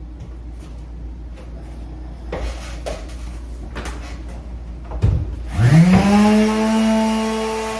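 Scattered knocks and clicks of handling, then about five and a half seconds in an electric sander's motor starts with a quick rising whine and settles into a steady hum.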